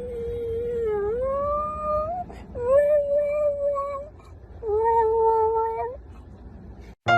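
A cat yowling in three long, drawn-out calls, each bending in pitch, the first dipping and then rising.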